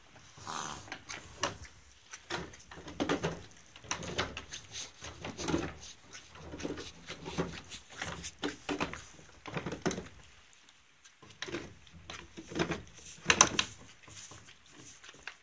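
Irregular knocks and bumps against wooden stable boards, with short rustles, from ponies moving about a wooden stall and nosing at a hanging lick. There is a short lull about two-thirds of the way through, and the loudest knocks come near the end.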